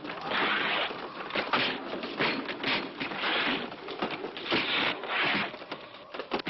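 A run of harsh, hissing, scratchy noise bursts in quick irregular succession, fading near the end.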